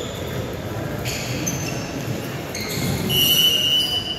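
Sneakers squeaking in short high chirps on the hardwood gym floor during indoor soccer play. About three seconds in, a referee's whistle gives one steady, loud blast of about a second, stopping play.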